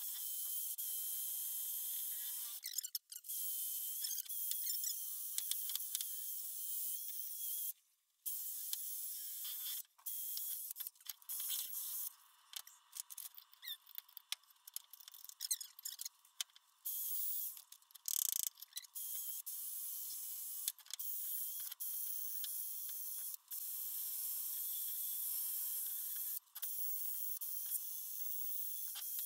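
Cordless drill spinning a wire wheel against a steel mower part, stripping rust and loose paint: a steady motor whine with hissing scratching on top. It stops and starts again several times as the trigger is released.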